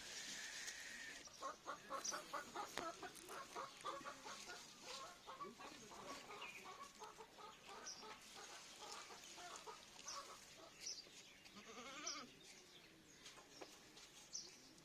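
Faint farmyard animal calls: a quick run of short repeated calls over the first few seconds, then sparse high chirps, and one drawn call that rises and falls about twelve seconds in.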